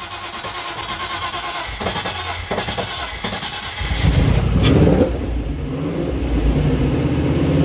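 Rover V8 engine cranking on the starter for about four seconds, then catching and firing up. It blips up in revs briefly, then settles into a steady, loud idle.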